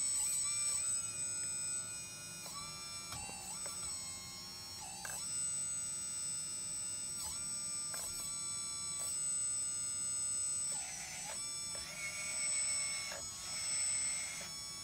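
Huina 580 RC hydraulic excavator's pump motor whining, its pitch stepping up and down and briefly dipping each time the transmitter sticks move the boom and arm, several times over.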